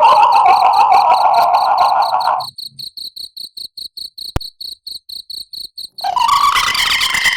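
A woman's eerie wailing cry, a horror 'female ghost crying' sound effect, over steady cricket chirping at about six chirps a second. The wail breaks off about two and a half seconds in, leaving the crickets alone with a single sharp click, and comes back near the end at a higher pitch.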